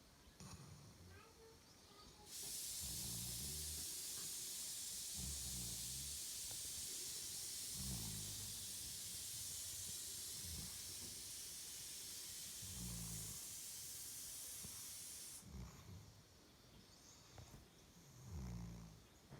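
Tibetan mastiff puppy snoring in its sleep, a low snore about every two and a half seconds. A steady high hiss starts about two seconds in and cuts off suddenly about three quarters of the way through.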